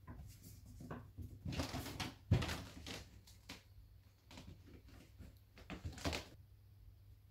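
Two kittens playing and climbing: scattered scuffs, rustles and light knocks, with one louder thump a little over two seconds in.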